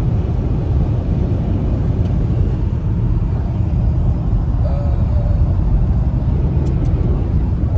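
Steady low rumble of a car on the move: road and engine noise heard from inside the vehicle.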